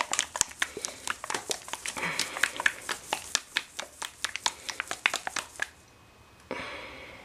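Crinkling and many small clicks from gloved hands handling a plastic hair-colour applicator bottle. It stops about five and a half seconds in, and a faint steady hiss starts near the end.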